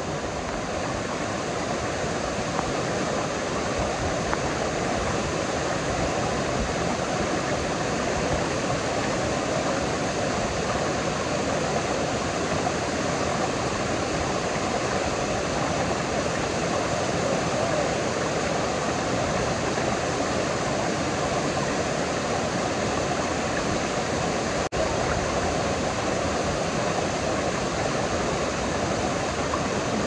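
Small waterfall pouring down a rock face onto boulders close by: a loud, steady rush and splash of falling water.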